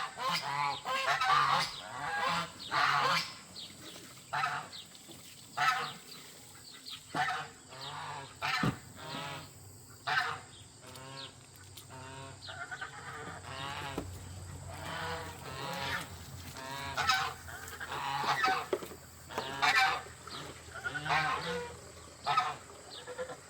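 Domestic geese honking over and over, loud calls overlapping with softer ones.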